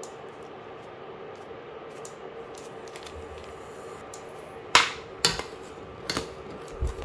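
A steel ladle knocking against the rim and sides of a steel pan, four sharp clinks starting a little past halfway, as it stirs milk simmering on the stove. A steady hum runs underneath.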